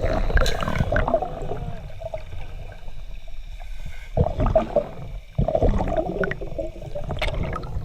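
Underwater scuba breathing: exhaled air gurgling out of the regulator in bursts of bubbles, about three breaths, with quieter gaps between them.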